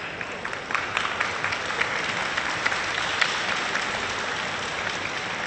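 Crowd applauding: dense clapping that swells about a second in and eases off toward the end.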